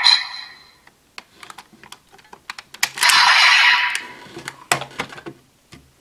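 Rapid plastic clicks and snaps from a DX Desire Driver toy belt being handled as its buckle and Core ID are taken off and swapped. A short rushing burst of noise comes about three seconds in.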